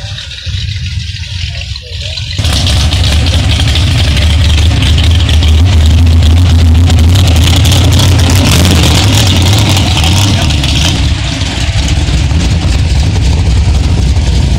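Loud engine and exhaust of a modified red pickup truck driving past, a deep steady rumble that comes in suddenly about two seconds in and eases off slightly near the end.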